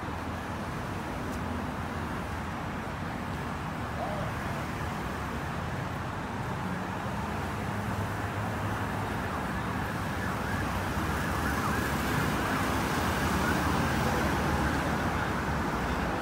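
City road traffic noise heard from the roadside, growing slowly louder toward the end.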